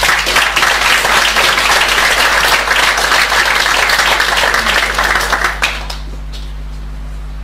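Audience applauding, a dense run of clapping that dies away about six seconds in.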